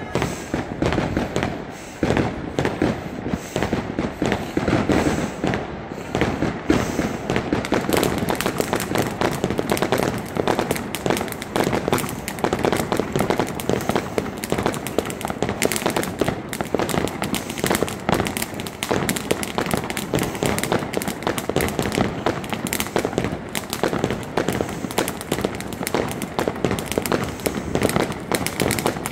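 Firecrackers set off on the ground, bursting in rapid, unbroken succession as a dense crackle of bangs.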